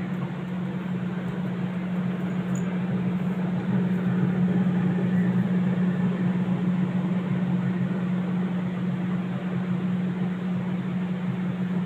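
Whirlpool refrigerator running with its freezer section open: a steady low hum with an even hiss over it.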